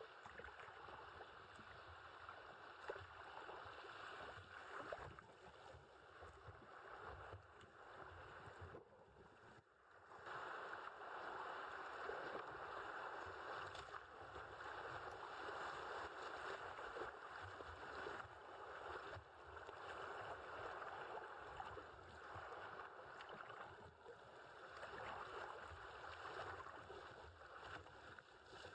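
River water rushing and splashing around a kayak's bow as it runs a riffle. It grows louder from about ten seconds in.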